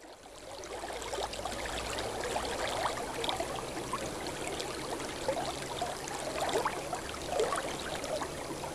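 Running water, a stream or river flowing and bubbling over stones, fading in over the first second and then running steadily.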